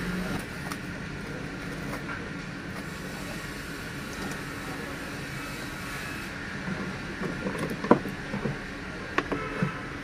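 A steady background hum, then in the second half a few sharp clicks and knocks of a car's plastic air filter housing being handled, one knock much louder than the rest.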